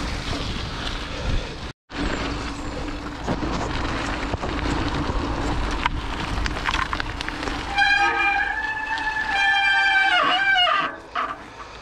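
Wind and tyre noise of a mountain bike riding a wet trail. Near the end comes a loud, steady brake squeal lasting about three seconds, its pitch dropping just before it stops as the bike pulls up.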